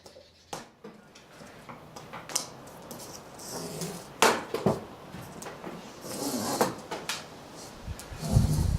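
Rubber spline being pulled up and out of the groove of a window screen frame: scattered scrapes, rustles and clicks of the frame being handled. The sharpest knock comes about four seconds in, with low thuds near the end.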